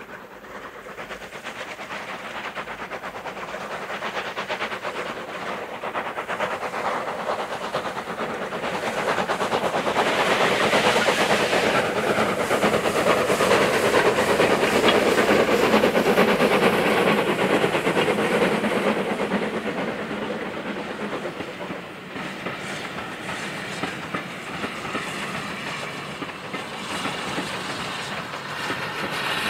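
A steam train running past on the line, growing steadily louder to a peak about halfway through and then fading.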